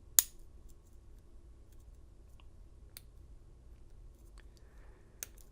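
A few sharp, scattered clicks of lock picking tools working the pins of an American Lock 700 padlock, the loudest just after the start, others about three seconds in and near the end.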